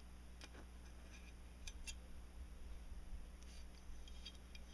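Faint small clicks and light ticks of metal parts being handled: the spring-loaded extractor plunger being fitted into a Glock 23 slide, with a close pair of clicks a little under two seconds in.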